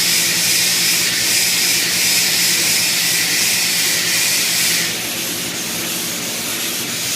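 Abrasive belt grinder with a 50-grit belt grinding the radius on a welded stainless steel corner seam: a loud, steady hiss over the hum of the machine's motor. The hiss drops back and gets quieter about five seconds in.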